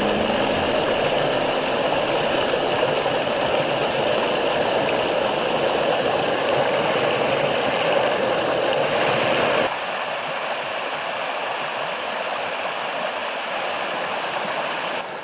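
Partly iced-over mountain stream rushing and splashing over boulders in a steady full rush. About ten seconds in it cuts abruptly to a lighter, thinner rush of water with less low rumble.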